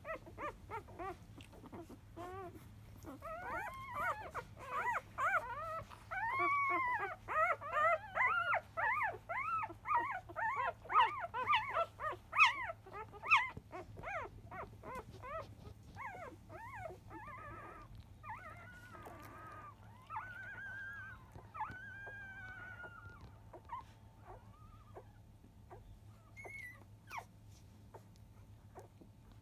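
Five-day-old Labrador retriever puppies squeaking and whimpering while nursing: many short, overlapping high calls that rise and fall in pitch. The calls come thick and fast for the first half and thin out to a few scattered squeaks near the end.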